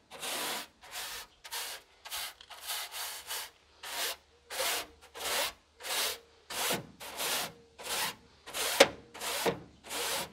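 Stiff-bristled scrub brush scrubbing back and forth over a tractor's perforated front grille, working in limescale remover, in even strokes about two a second. One stroke near the end is louder, with a sharp click.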